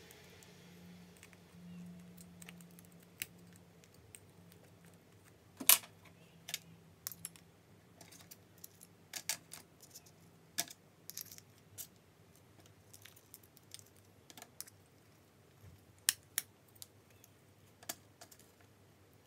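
Small metal parts of a cordless drill driver's clutch and gear assembly clicking and clinking as they are handled and fitted, in scattered, irregular sharp clicks. The loudest click comes about six seconds in.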